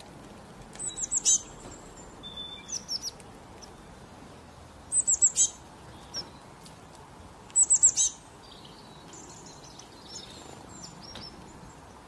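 A small songbird chirping: bursts of three to five quick, high, falling chirps about every two to three seconds, with fainter calls in between, over a steady background hiss.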